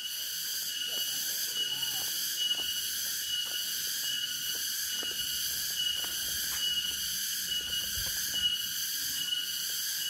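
Steady, high-pitched chorus of forest insects, with one note pulsing about twice a second.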